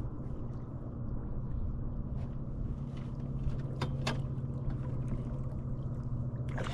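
Boat motor running steadily at slow trolling speed, a low even hum. A few sharp clicks come about four seconds in.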